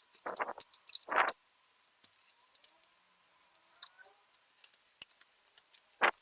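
Clicks and short scrapes from hands and small tools working on the plastic casing and parts of a ThinkPad T420 laptop during disassembly: a few brief bursts in the first second and a half, faint scattered ticks, then another burst near the end.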